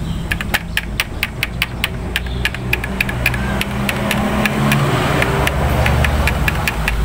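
Clicks as the input selector buttons on a Sony stereo receiver are pressed in turn, the selector now switching sources after its front-board chipset was reheated, over a steady low rumble that grows louder in the second half.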